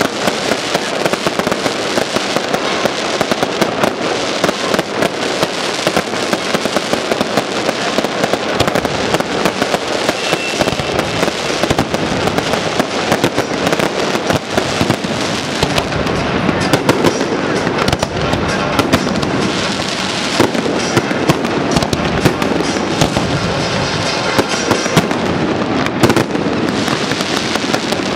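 Aerial fireworks display: many shells bursting in rapid, overlapping succession, with dense crackling.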